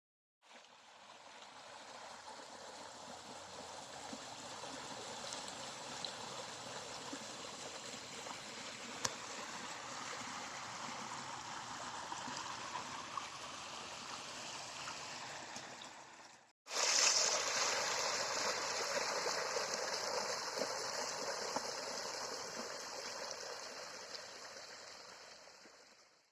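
A small stream running and trickling in a steady rush of water. About two-thirds of the way through the sound cuts out for an instant and comes back louder and hissier, as from a second stretch of flowing water.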